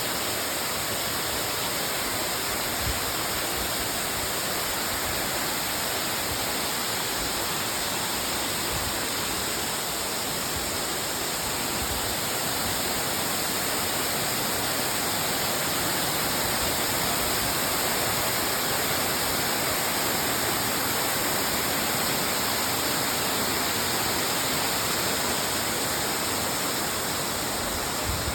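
A waterfall rushing: a steady, even roar of falling water.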